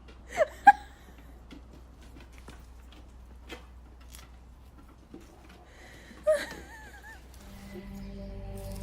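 An animal's short whimpering calls: two quick ones near the start and a longer wavering one about six seconds in. A steady low hum sets in near the end.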